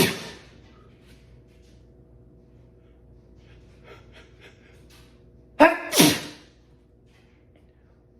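A person sneezing twice. The end of one sneeze falls at the very start, and a full sneeze comes about six seconds in: a short sharp burst followed at once by a longer, louder one. A faint steady hum runs underneath.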